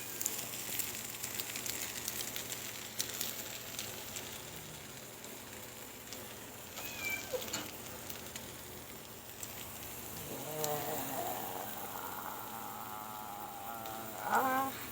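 A steady hiss with scattered fine crackles and clicks. A faint voice is heard about ten seconds in.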